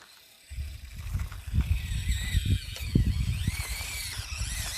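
Axial SCX24 micro RC crawler's small electric motor and gears whining, the pitch rising and falling with the throttle as it climbs, starting about half a second in, over irregular low rumbling.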